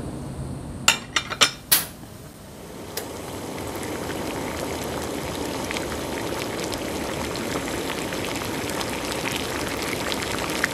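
A few sharp clicks about a second in, then a pot of stew cooking on a gas burner, bubbling and sizzling steadily while a metal spoon stirs through it.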